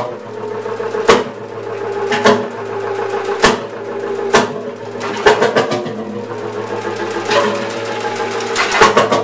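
1918 Jelbart tractor's single-cylinder, two-stroke crude-oil engine running on hit-and-miss governing. It gives single sharp firing bangs roughly once a second over a steady hum as it coasts between them, then a quick run of several firings near the end.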